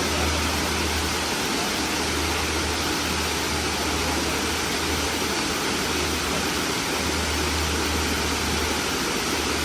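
Waterfall: the steady rush of falling water, an even hiss across the range with a low rumble that comes and goes.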